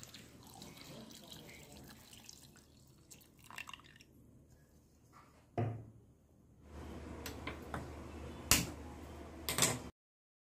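Water poured from a jug into an aluminium pressure cooker, a faint splashing trickle. Later a low steady hum, with two sharp clicks about a second apart near the end.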